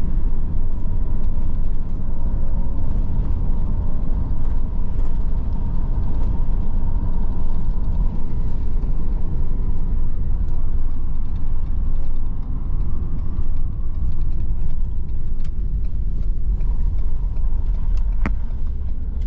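Steady low road and engine rumble heard from inside a moving vehicle, with one sharp click near the end.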